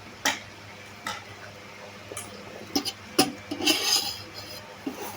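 Eating utensils clinking against a dish several times at uneven intervals, with a short scraping noise a little under four seconds in.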